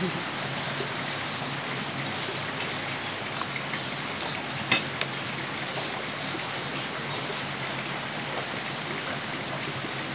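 Steady rain drumming on a corrugated metal roof, with a few light clinks of spoons against plates around the middle.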